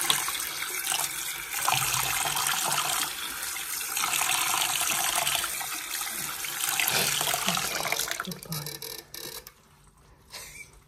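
Water running steadily from a tap, then dying away about eight seconds in as the flow stops.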